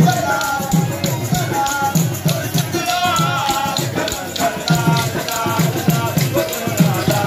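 Live devotional drumming for dancing: a driving, repeating drum beat with a rattling, jingling rhythm on top and a wavering melody line above.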